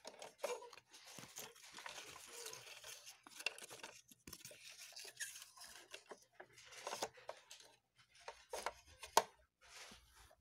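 Rustling and irregular plastic clicks and clacks as plastic toy-kitchen pieces and paper play money are handled, with the sharpest click about nine seconds in.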